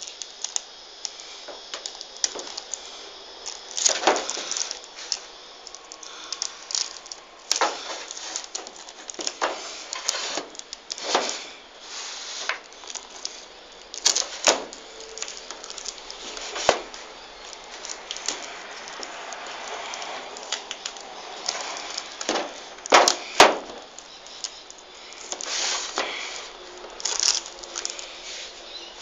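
Scattered plastic clicks, knocks and rustling from handling an X-Shot toy foam-dart shotgun, with the phone rubbing against clothing. A pair of sharper clicks comes close together late on.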